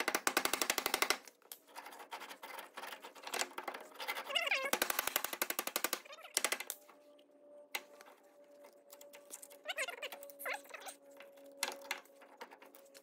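Rapid runs of knocking on a seized tractor front wheel hub as it is hammered loose on its spindle with a rubber mallet. One run is about a second long at the start and another comes about five seconds in, with scattered lighter taps and clicks between and after.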